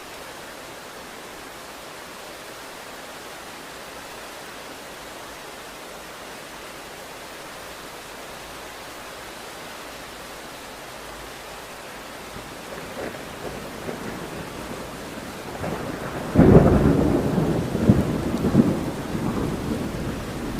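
Steady rain falling, then thunder. A rumble starts building about twelve seconds in and breaks into a loud thunderclap about sixteen and a half seconds in, rolling on in several surges for a few seconds.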